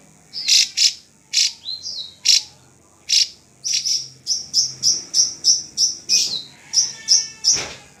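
Drongo (srigunting) singing: a string of short, sharp, high whistled notes. In the second half they come as a quick run of evenly repeated notes, about three a second.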